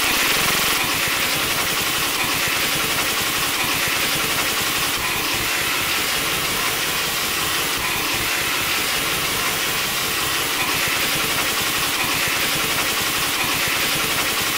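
A loud, steady hiss with a low rumble underneath, unbroken and without separate shots standing out.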